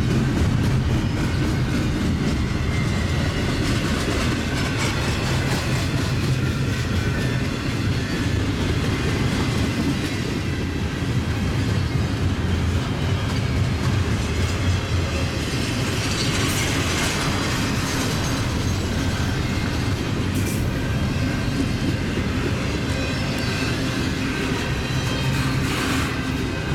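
Double-stack intermodal well cars rolling past close by: a steady rumble of steel wheels on the rails with repeated clickety-clack over rail joints, and a stretch of higher-pitched hiss from the wheels about two-thirds in.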